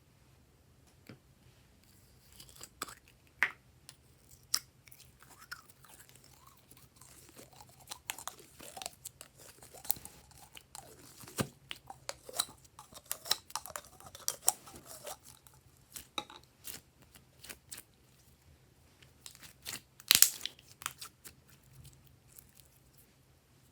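Glossy slime being squished and stretched by hand, giving irregular sticky clicks, crackles and small popping sounds, with the loudest cluster about 20 seconds in.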